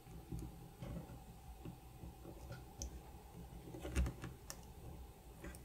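Small flathead screwdriver prying at the plastic cover of an Omron D2FC-F-7N mouse microswitch to free its flaps from their tabs: faint, scattered ticks and scrapes of metal on plastic, with a sharper click about four seconds in.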